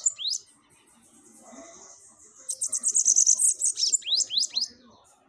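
Bananaquit (sibite) singing: a high, thin, very rapid buzzy trill that breaks off into a few quick rising notes. A pause of about two seconds separates the end of one song from the start of the next, which comes about halfway through.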